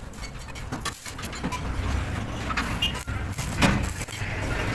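Stick (arc) welding on steel flat-bar scrolls: the electrode's arc crackling and sizzling irregularly, with a sharp burst a little after three and a half seconds, over a steady low hum.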